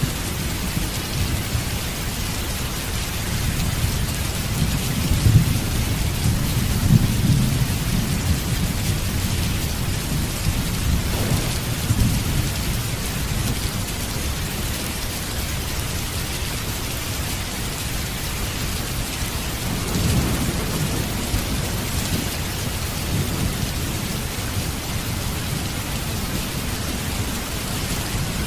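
Steady heavy rain with rolling thunder, the low rumble swelling about four to eight seconds in and again around twenty seconds.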